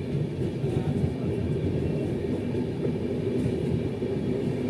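Indian Railways passenger express coach rolling along the track, a steady low rumble of wheels and running gear heard from the coach's doorway.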